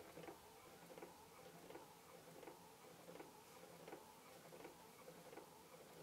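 Clockwork mechanism of a taxidermy automaton running, with a faint, regular tick-tock of alternating stronger and lighter ticks, about three a second.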